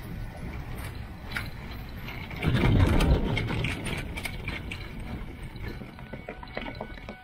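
Small trike's frame and wheels rattling and rumbling as it moves over bumpy grass, with scattered clicks and a louder surge of rumble about two and a half seconds in.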